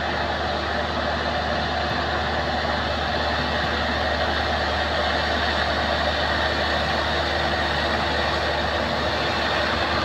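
Crown MCH 2000 combine harvester's engine running steadily at an even pitch and level.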